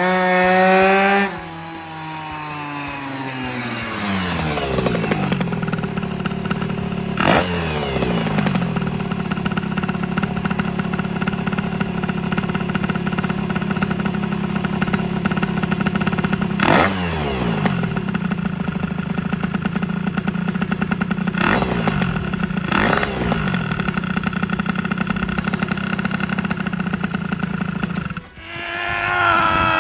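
MBK 51 moped with a 2Fast 70cc two-stroke kit riding up under throttle. Its revs then fall as it rolls to a stop and settles into a steady idle, with four short blips of the throttle. The engine sound cuts off near the end.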